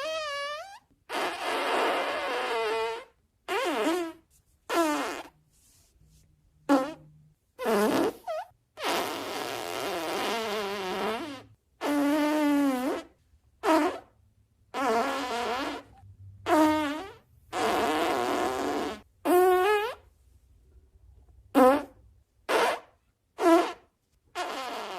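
A rapid string of about fifteen fart sound effects, one after another with short silent gaps between them. Some are short blasts of well under a second and some are drawn out for two to three seconds, their pitch wobbling and gliding up and down.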